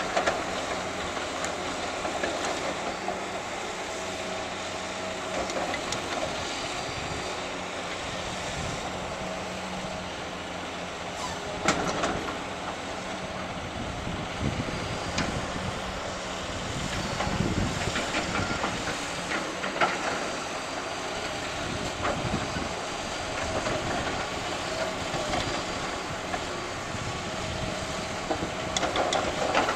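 Heavy machinery running steadily, with a few sharp knocks and clanks at irregular intervals, the loudest about twelve and twenty seconds in.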